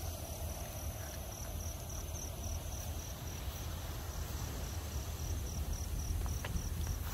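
Crickets trilling steadily, a continuous high chirring over a low, even background rumble.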